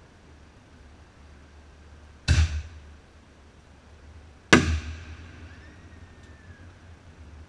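Two sharp firework bangs, a little over two seconds apart, each followed by a short echoing tail.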